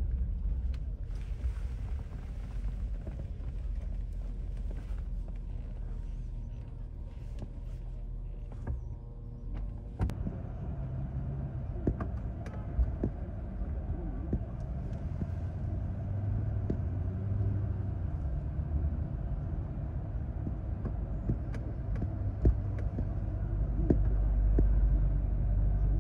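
Outdoor street noise: a steady low rumble with scattered short knocks and clicks.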